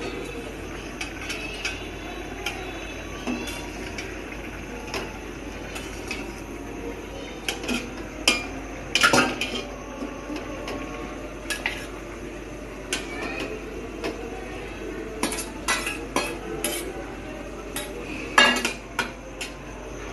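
Metal kitchen pots, lids and utensils clinking and knocking now and then, over a steady low background noise, with the loudest clatters about nine seconds in and near the end.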